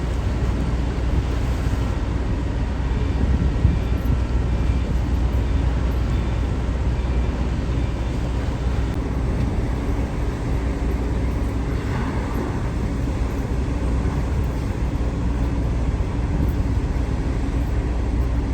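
A motor vehicle running steadily: a continuous low rumble with an even noise over it.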